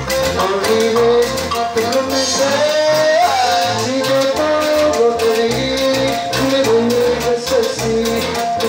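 A cumbia band playing live: accordion, guitars and drums over a steady beat, with a held, sliding melody line.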